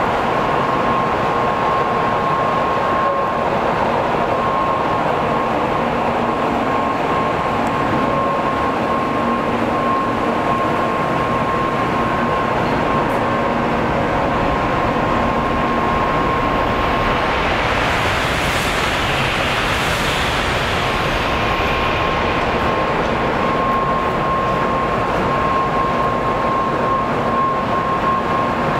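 Shinkansen train noise: a steady rumble and rush with a constant high tone, with a brighter hiss swelling briefly about two-thirds of the way through.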